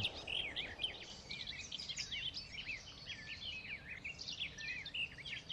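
A chorus of small birds chirping, many short rising and falling notes overlapping, fairly faint.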